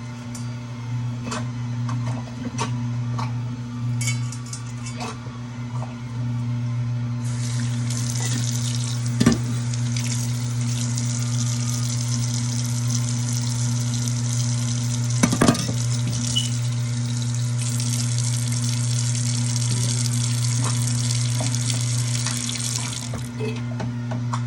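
Water running from a kitchen tap into a sink for about fifteen seconds, with a few knocks of things being handled under it, over a steady low hum. Before the water comes on there are scattered light clicks and knocks.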